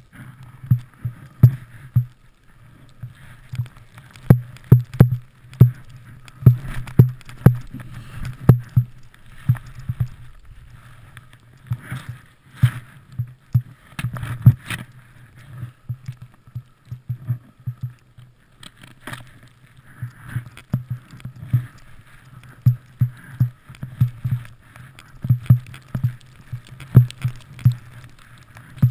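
A skier turning through deep powder, heard through a body-mounted camera's housing: irregular muffled knocks and thumps, several a second, as skis, poles and body move over the snow, with a faint swishing hiss of snow.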